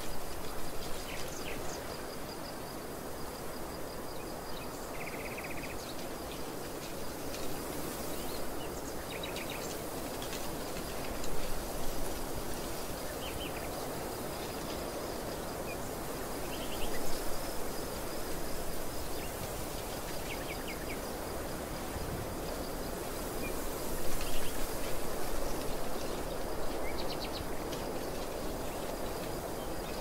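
Wind blowing across an open field, rising in gusts a few times, with small birds chirping and trilling briefly here and there.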